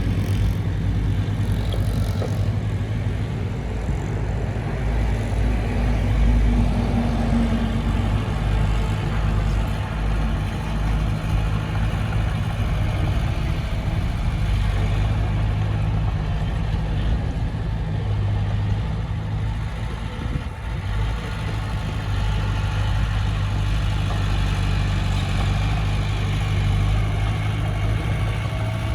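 Diesel engine of a Komatsu D20P bulldozer running steadily.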